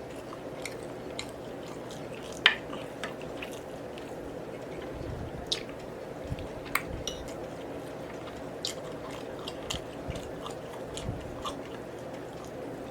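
Eating at a plate: scattered sharp clicks of cutlery against the dish, the loudest about two and a half seconds in, with chewing and biting between, over a steady low background hum.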